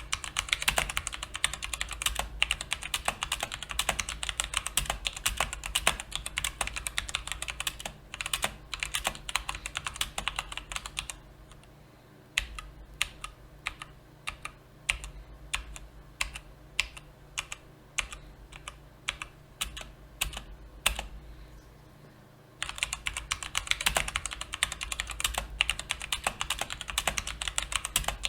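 Typing on a mechanical keyboard with brown tactile switches. Rapid, dense keystrokes give way to separate single key presses for about ten seconds in the middle, then fast typing resumes near the end.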